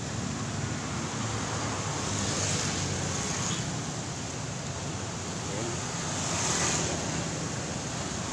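Steady rush of swollen, fast-flowing floodwater pouring through a floodway past its gate piers, mixed with wind on the microphone; the hiss swells twice.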